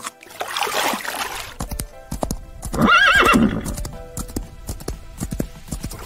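Horse's hooves clip-clopping, with one wavering whinny about three seconds in, the loudest sound. Water splashing comes briefly before it, at the start.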